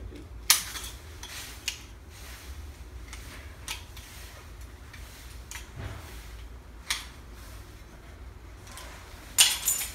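Snips cutting white aluminum trim coil: single crisp snips a second or more apart, then a quick loud run of cuts near the end.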